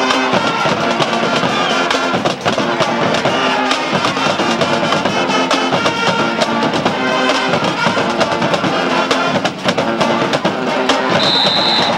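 Band music with brass and drums playing steadily, with a short high steady tone a little before the end.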